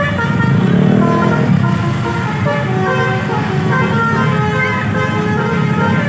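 Telolet bus horn playing a quick tune of short notes at changing pitches, over the steady rumble of the bus's engine.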